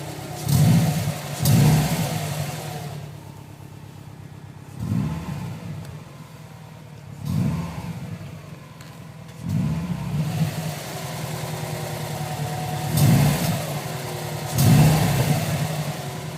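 2010 Subaru WRX's turbocharged flat-four engine under light throttle in first gear as the clutch is eased out, swelling in about seven short surges over a steady low running note. With each surge comes a rough, wide-range noise from underneath the car that the owner cannot place and the dealer puts down to the exhaust.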